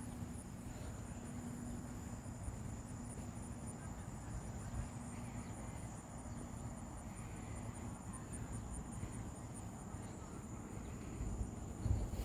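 Insects calling steadily: a continuous high-pitched trill with a faster pulsing chirp above it, over a low rumble. A couple of low thumps near the end.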